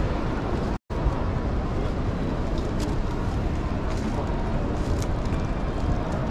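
Steady background din of a busy indoor exhibition hall, a low rumble with the murmur of visitors. The sound cuts out completely for a split second a little under a second in.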